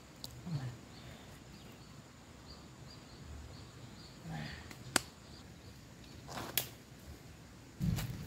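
Hands scraping and patting loose, dry soil, with a sharp click about five seconds in. Just before the end, footsteps through dry leaves and undergrowth begin.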